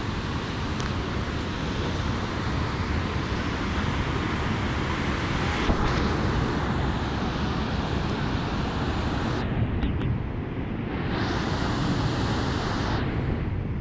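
Steady rushing noise of Lynn Creek's water far below the suspension bridge, with wind buffeting the microphone.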